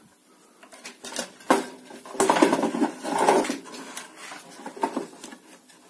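Hands handling a CRT television's circuit board, wiring and plastic connector: scattered clicks and knocks, with a longer clattering rattle about two seconds in.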